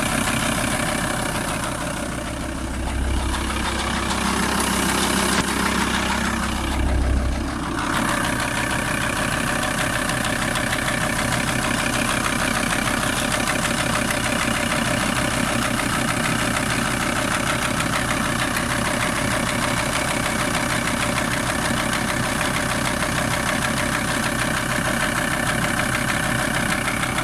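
VW T4 TDI 150's 2.5-litre five-cylinder diesel idling with a clatter, the engine knock the owner is asking about. The sound swells deeper twice in the first eight seconds, then settles into a steady idle.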